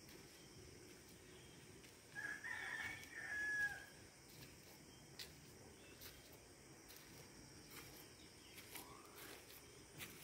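A rooster crows, about two seconds in, a single cock-a-doodle-doo lasting about a second and a half with a held final note. A fainter rising call follows near the end, over a faint steady background hiss.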